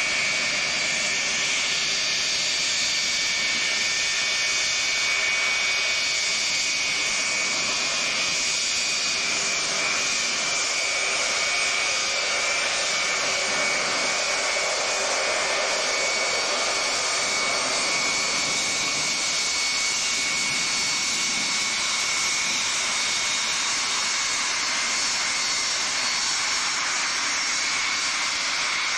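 Boeing 707's four Pratt & Whitney JT3D turbofan engines running steadily as the jet taxis and turns on the runway. Their sound is a loud, even rush with a high whine held at a constant pitch.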